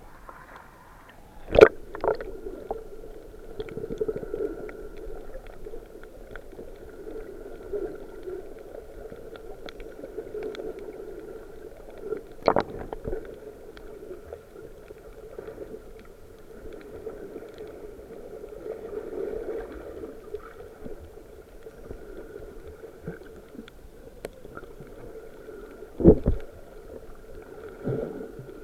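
Muffled water sounds, as heard from a camera held under the water while snorkeling: a steady low gurgling murmur, broken by three sharp knocks.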